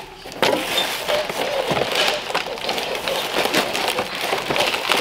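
Plastic wrap and cardboard packing crinkling and rustling as a box is torn open and unpacked by hand, a dense run of small crackles.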